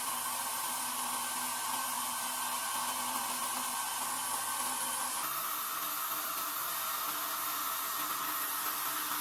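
A small electric motor whirring steadily with rushing air, shifting to a slightly different pitch about five seconds in.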